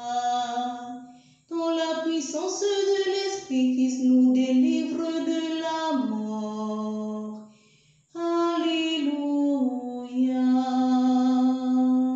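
A woman singing an Easter hymn unaccompanied, in long held phrases broken by two short pauses.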